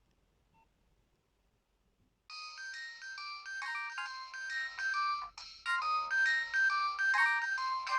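Nokia 2630 polyphonic ringtone: after a couple of seconds of near silence, a quick melody of bright electronic notes starts, several notes sounding at once, and grows louder about halfway through.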